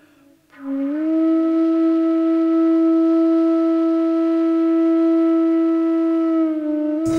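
Background score: a flute slides up into one long held note and sustains it steadily, easing off slightly near the end.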